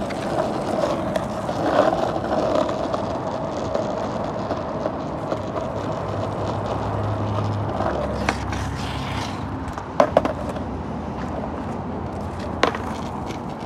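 Skateboard wheels rolling over rough asphalt, a steady grinding roll. About ten seconds in come two sharp clacks close together, and another comes near the end: the board's tail and wheels striking the pavement in trick attempts.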